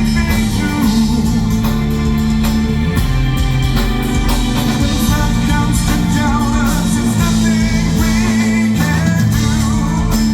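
Live progressive metal band playing loudly: guitars, bass, drums and keyboards, with sustained low bass notes and a wavering lead melody on top.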